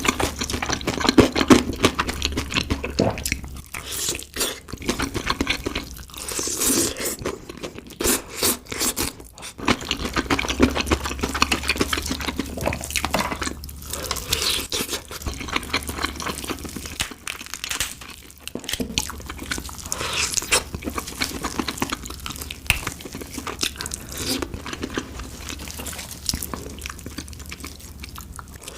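Close-miked eating of fried chicken: crisp batter crunching with each bite and chewing, a dense run of crackling crunches with short pauses.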